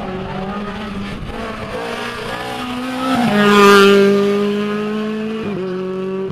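A rally car's engine running at high revs as the car passes at speed, loudest a little past halfway through. The note breaks briefly about three seconds in and again near the end, as at gear changes.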